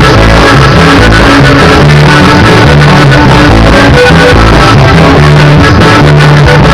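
Loud norteña music with plucked strings over a stepping bass line, recorded so hot it sits at full level throughout.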